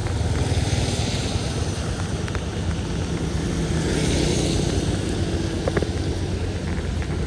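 Steady engine hum and road noise of a moving vehicle on a rain-wet street, with a hiss of wind and rain over it.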